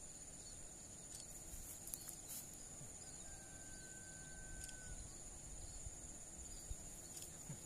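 Faint outdoor ambience with a steady high-pitched insect buzz over a low rumble. One thin held whistle of about a second and a half comes about three seconds in.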